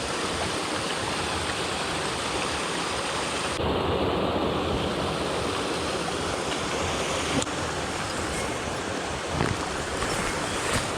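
Mountain stream rushing steadily over rocks. Its sound shifts abruptly twice, about a third and two-thirds of the way through.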